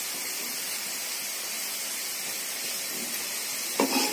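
Steady, even sizzling hiss from the hot pan of brinjal and besan sabzi, still cooking in the pan's heat with the gas just turned off. A short, louder noise cuts in near the end.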